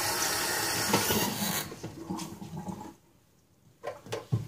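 Water running steadily from a tap into a container to soak paint off for cleaning, shut off about a second and a half in. Then come a short spell of rubbing and handling noise and a few light knocks near the end.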